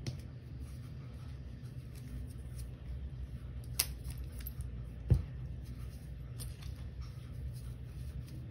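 Fingers with long acrylic nails pressing into and crumbling dried Comet cleanser powder clumps, a soft crunching and crackle of breaking crumbs. Two sharper knocks come about four and five seconds in, the second the loudest.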